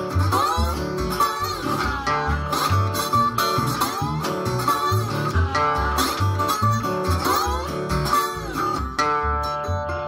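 Delta blues played on harmonica, resonator guitar and washtub bass: the harmonica plays bent, sliding notes over the guitar, while the washtub bass plucks a steady low bass line. The harmonica drops out about nine seconds in, leaving guitar and bass.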